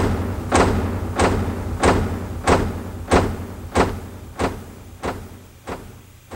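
Hard-soled footsteps walking on a polished corridor floor, about one and a half steps a second, each step echoing briefly and growing fainter toward the end. A steady low hum runs underneath.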